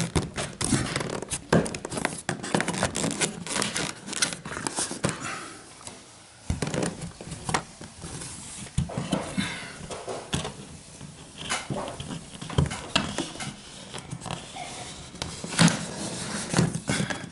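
Irregular clicks, knocks and creaks of PVC ceiling panels being pushed and snapped into their tongue-and-groove fit by hand, briefly quieter about six seconds in.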